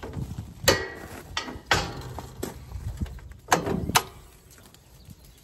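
Sharp clicks and knocks, about five of them with two close together near the end, from hands working the latches and side panels of a Kubota L3901 compact tractor.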